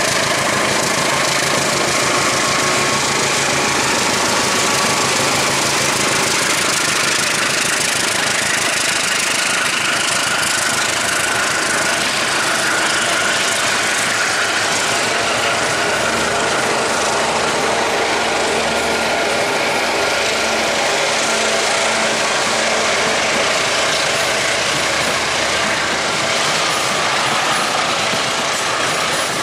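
CC 201 diesel-electric locomotive's engine running loud and steady, with its low engine note changing about halfway through.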